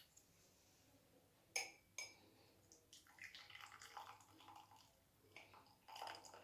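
Milk being strained into a glass: two light clinks of the strainer against the glass about one and a half seconds in, then the milk trickling through the strainer.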